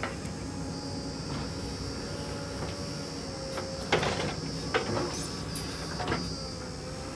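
JCB 3DX backhoe loader's diesel engine running steadily as it works its hydraulic arm, with a few sharp thuds from about four seconds in as a bucketful of soil and clods is dumped into a tractor trailer.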